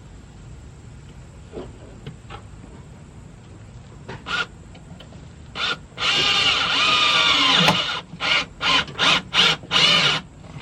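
Cordless drill driving a screw: two short blips, a loud run of about two seconds with the motor pitch sagging under load, then a string of about five quick trigger pulses.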